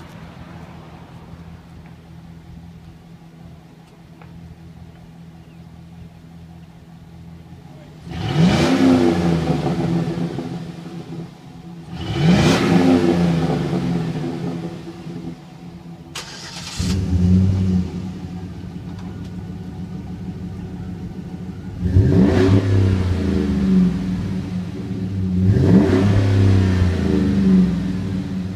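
Chevrolet Silverado 5.3-litre V8 with stock exhaust idling, then revved twice, about eight and twelve seconds in. About sixteen seconds in a second Silverado 5.3 V8 with a Flowmaster Super 40 muffler is started and settles to a louder, deeper idle. It is then revved twice near the end.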